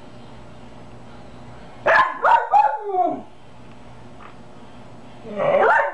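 Small dog "singing": a quick run of loud yelping barks that slide down in pitch about two seconds in, then a longer howling yelp near the end.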